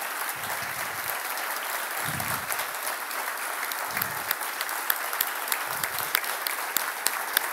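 Audience applauding: a steady wash of many hands clapping.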